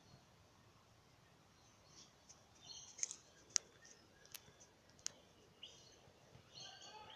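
Faint birdsong of short, high chirps. Three sharp clicks, the loudest sounds, come two close together about three seconds in and one more about five seconds in.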